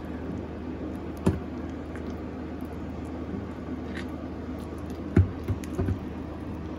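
A spoon stirring thick, half-melted rebatched soap in a crock pot, with a steady low hum underneath. A sharp knock a little over a second in and three quick knocks near the end, the utensil striking the pot.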